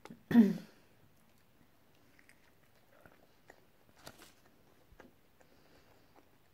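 A person biting into and chewing a cheeseburger, mouth closed: faint, irregular small clicks and smacks. A brief voiced hum comes just at the start.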